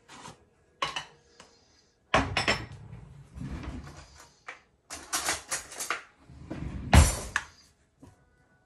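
Kitchen spice containers being handled off-camera to get out the black pepper: a few clicks, then stretches of rattling and scraping, with a solid knock about seven seconds in.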